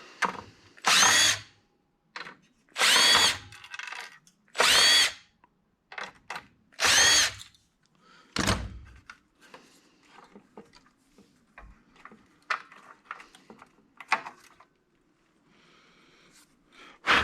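Power drill run in four short bursts about two seconds apart, its whine rising and falling in pitch each time, backing screws out of the console's sheet metal. A single thump follows, then light clicks and clanks of metal and boards being handled.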